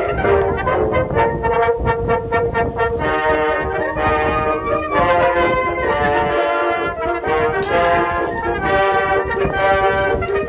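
Background music: a melody of held, pitched notes played over the whole stretch.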